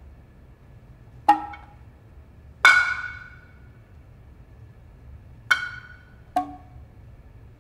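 Kotsuzumi shoulder drums struck four times in a slow, sparse rhythm. Two of the strokes are lower and rounder in tone, and two are sharp and bright with a short ring. The second stroke is the loudest.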